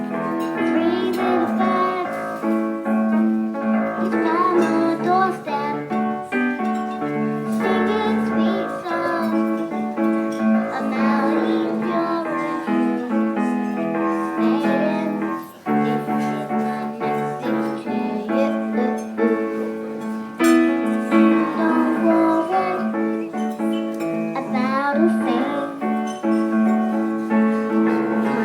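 A young female voice singing with piano accompaniment, dropping out briefly about halfway through before carrying on.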